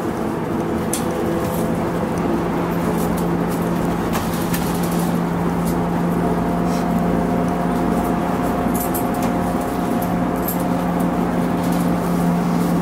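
Mitsubishi Aerostar one-step bus heard from inside the cabin while running on the road: a steady engine drone whose note rises slightly about halfway through, with light clicks and rattles.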